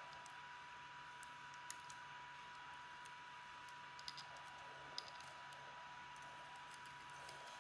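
Near silence with a faint steady hiss, broken by a few small, light clicks about two seconds in and again between four and five seconds in: metal tweezers tapping against the drone's small plastic parts.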